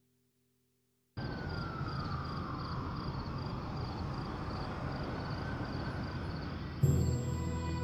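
City traffic noise that starts suddenly about a second in and runs steadily, with a whine falling in pitch over the first couple of seconds. Near the end, music comes in with a sudden loud chord.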